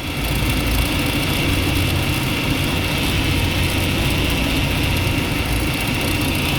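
BMW E36 engine idling with its power steering pump running, a steady high whine over the low engine hum. The pump is drawing in air, and the steering fluid is foaming, which causes the pump noise.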